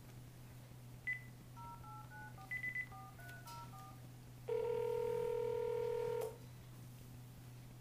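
Cordless phone being dialed: a keypad beep, then a quick run of about ten touch-tone (DTMF) dialing tones, followed by one steady ringback tone of about two seconds as the call rings through.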